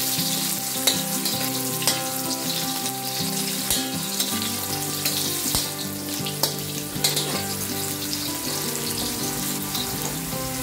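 Carrot sticks frying in hot oil in a wok: a steady sizzle with fine crackling, as a metal slotted spatula stirs them, with a few sharp clicks along the way.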